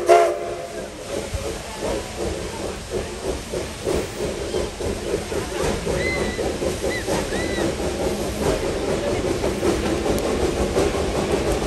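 Steam locomotive getting under way: a short whistle blast right at the start, then steady hissing steam and rhythmic exhaust chuffs that quicken.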